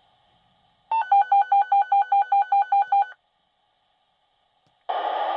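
Fire department dispatch pager sounding its alert: a rapid run of about a dozen identical electronic beeps, about six a second, lasting roughly two seconds. Near the end comes a short hiss of radio static as the next transmission keys up.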